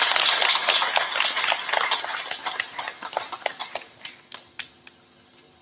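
Crowd applauding: dense clapping that thins to a few scattered claps and dies away about five seconds in.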